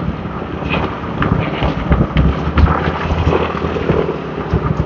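Wind buffeting the microphone of a moving motorbike, a steady low rumble with irregular thumps, over the hum of scooter engines in street traffic.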